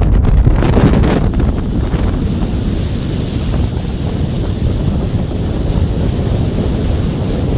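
Wind buffeting the microphone hard: a loud, low rumbling rush, gustier in the first second or so and then steadier.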